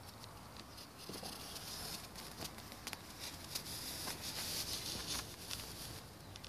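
Footsteps rustling and crackling through leaves and undergrowth, with scattered light clicks; the rustling is thickest in the middle of the stretch.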